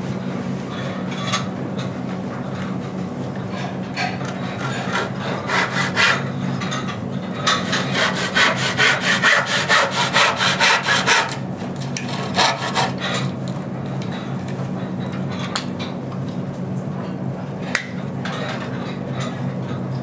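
Wood being sawn: scattered scraping strokes, then a run of quick, even saw strokes, about five a second, for a few seconds in the middle, loudest there, over a steady low hum.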